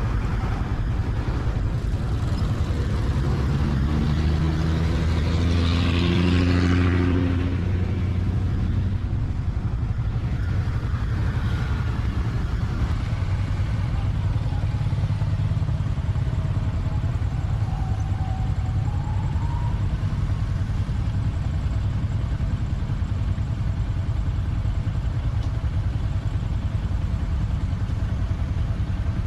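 Road traffic: a steady low rumble of vehicle engines and tyres, with one engine growing louder and passing between about two and seven seconds in.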